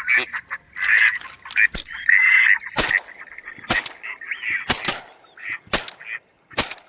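Duck quacks in a quick run of nasal calls, loudest in the first half. Several sharp clicks fall about a second apart through the second half.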